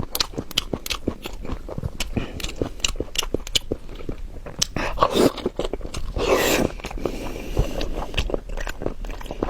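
A person biting and chewing braised pork knuckle close to the microphone: many short, irregular wet clicks and smacks, with two longer, louder noisy sounds a little past halfway.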